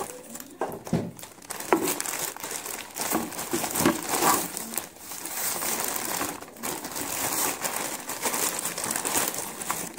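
Plastic courier mailer bag crinkling and crackling as it is handled and opened by hand, in irregular rustles with sharp little crackles throughout.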